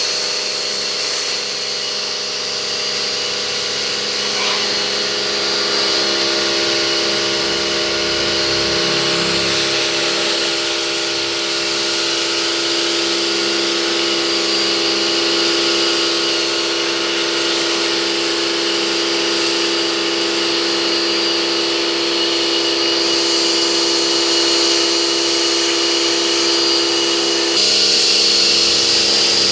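Pressure washer running steadily, its pump motor whining over the hiss of the water jet. The tone shifts a couple of seconds before the end.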